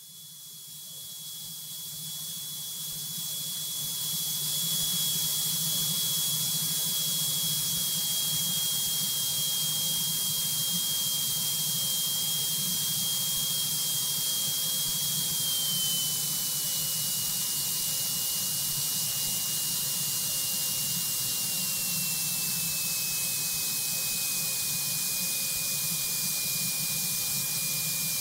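Rushing airflow over a light aircraft in flight on final approach, a steady hiss that swells over the first few seconds and then holds, over a low steady engine drone. A thin high whistle runs through it and slowly steps down in pitch.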